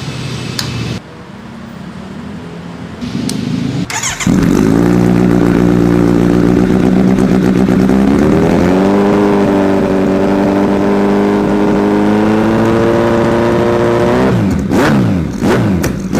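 Kawasaki motorcycle engine through a newly fitted aftermarket exhaust, revved up about four seconds in and held steady, raised higher near nine seconds and held, then dropping near the end with several sharp exhaust pops (backfire) as the revs fall.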